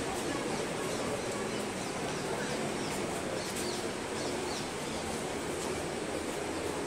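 Busy street ambience: a steady wash of traffic and passers-by, with a few short bird chirps in the middle.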